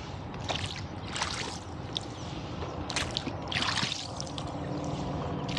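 Water splashing and trickling close to a rowboat as it moves along the river, in uneven bursts over a low steady rumble.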